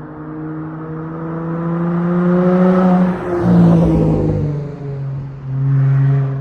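Dodge Charger SXT's V6 through a Flowmaster Outlaw exhaust, the exhaust note climbing in pitch and getting louder for about three seconds. It then drops in pitch, with a second short loud stretch near the end.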